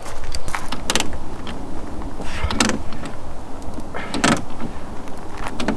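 Car door hardware being worked by hand with the door panel off: a few separate clicks, creaks and knocks spaced about a second apart.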